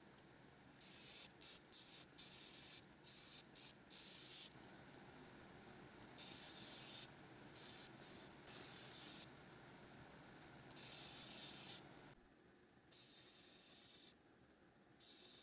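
Powder-coating gun spraying powder in repeated short hissing bursts of compressed air as the trigger is pulled and released, the first handful with a thin high whistle. A steady low hum runs underneath and stops about three-quarters of the way in.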